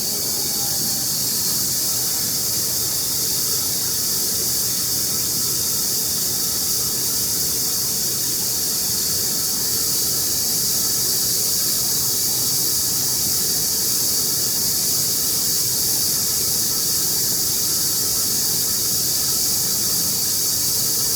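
EGO HPW3200 cordless pressure washer running on its turbo setting, the 15-degree nozzle jet spraying with a steady, loud hiss over a faint steady hum from the electric motor and pump.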